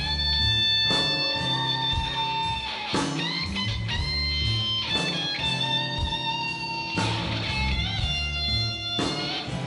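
Live rock band playing: electric guitars hold long sustained notes, some bent upward, over bass, keyboards and drums, with strong beats about every two seconds.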